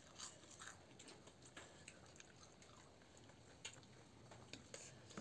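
Faint chewing: scattered soft mouth clicks and smacks of people eating, over near silence.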